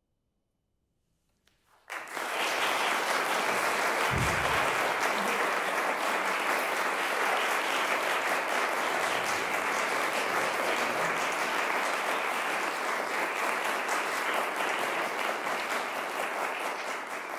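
About two seconds of near silence, then audience applause starts and carries on steadily.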